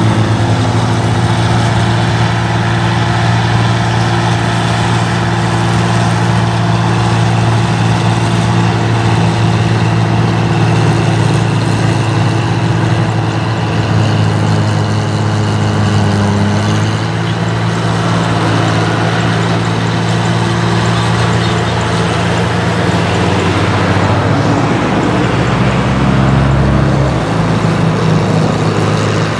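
Combine harvester's diesel engine running steadily under load as it harvests rice, a constant drone with a broad rushing noise over it. Its note shifts a little about halfway through and again a few seconds before the end.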